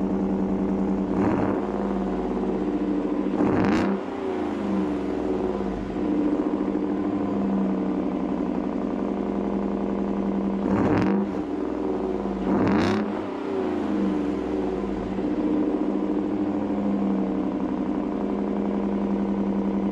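Ford F-150's 5.0 Coyote V8 idling through a Corsa Sport exhaust while still warming up after a cold start, with four quick throttle blips, each a brief rise and fall in pitch: two near the start and two about halfway through.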